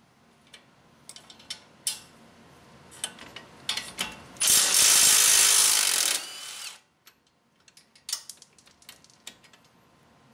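Milwaukee 3/8-inch cordless impact wrench runs for about two seconds, spinning a 19 mm nut off a strut-to-steering-knuckle bolt, then trails off. Before and after it come scattered metal clicks and clinks of the wrench and socket being fitted to the bolts.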